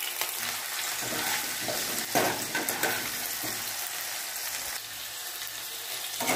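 Cubed potatoes sizzling steadily in hot oil in a nonstick pan. A slotted spatula stirs them, with a few short scraping strokes, the loudest about two seconds in.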